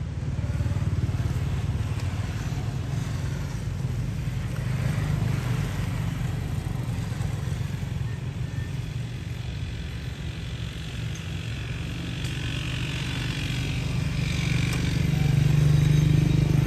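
A motor vehicle engine running with a steady low rumble, growing louder near the end.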